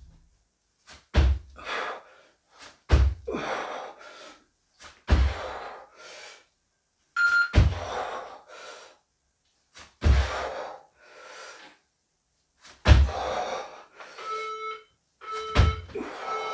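A person exhaling hard in rhythm with push-up reps, about one breath every two to two and a half seconds, each starting with a dull low thump. Faint workout-timer beeps sound near the end.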